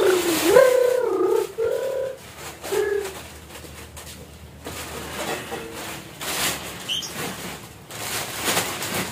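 A dove cooing, a few low held notes in the first three seconds and fainter ones later, with plastic bags rustling as crackers are handled.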